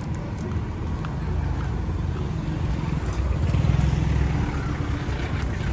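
Engine of a small Hyundai light truck driving slowly past close by. Its low rumble swells to its loudest a little past the middle.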